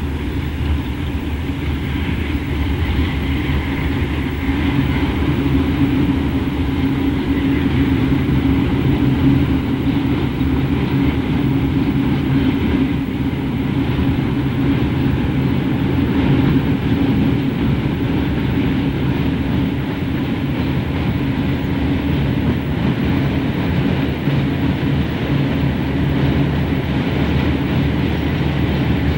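Chicago & North Western Alco C628 diesel locomotives, 16-cylinder Alco 251 engines, working an iron ore train: a steady, loud engine drone mixed with the rumble of wheels on the rails as the train rolls past on a steel truss bridge.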